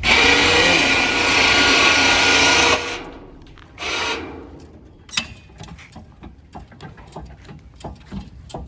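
Electric winch motor running under load for about three seconds and stopping, a short second burst a second later, then scattered clicks and knocks.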